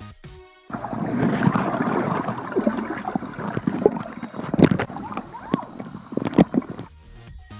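Pool water churning and bubbling, heard through a camera microphone submerged in the pool. It starts abruptly about a second in, with several sharp pops partway through.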